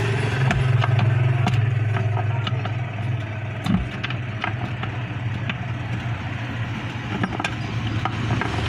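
A steady low mechanical hum with scattered light clicks and knocks over it.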